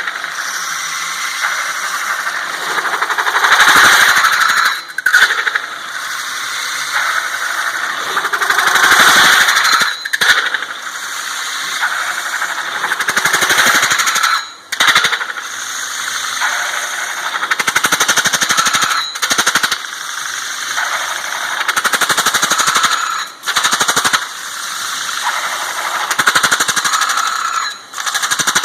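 A CNC metal-spinning lathe forming sheet metal on a spinning mandrel, the forming roller pressing on the metal with a loud squealing, rattling chatter. The sound drops out briefly about every four to five seconds and then resumes.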